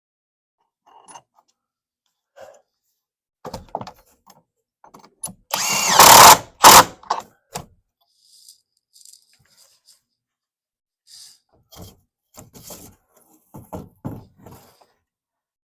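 A power tool runs in a loud burst of about a second, then briefly again, among scattered handling clicks and knocks.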